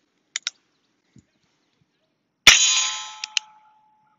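Ruger Single-Six .22 single-action revolver: the hammer is cocked with two quick clicks, then one loud shot about two and a half seconds in with a ringing tail, and the hammer clicks back twice more soon after.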